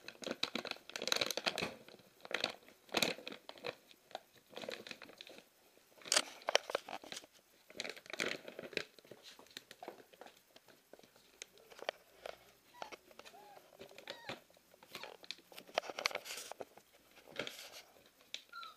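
Siberian husky puppy biting and tugging at a plastic bag: irregular crinkling, crunching and ripping of the plastic, with chewing.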